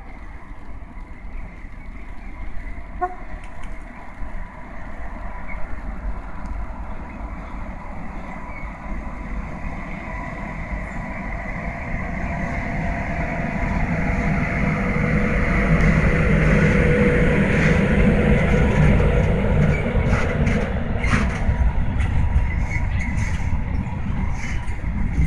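Electric locomotive hauling a freight train of covered wagons, approaching and passing, its rumble building steadily to its loudest partway through. Near the end the wagon wheels clack over rail joints.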